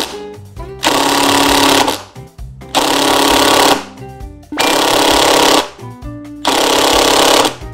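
DURATECH 20V cordless impact driver hammering a long coarse-thread wood screw into OSB over solid timber with no pilot hole, in four bursts of about a second each. Its auto-stop cuts the tool off after each burst against the heavy resistance, and the trigger is pulled again to drive the screw further.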